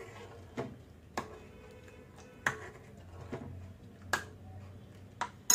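A steel ladle stirring milky soup in a pan, knocking against the pan in sharp single clicks about once a second, the last one near the end the loudest.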